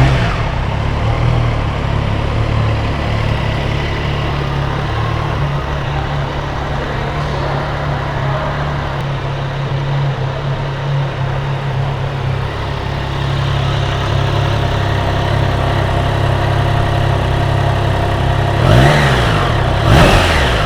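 Triumph Trident 660's inline three-cylinder engine catching just after a cold start and idling steadily. Near the end the throttle is blipped twice in quick revs that rise and fall.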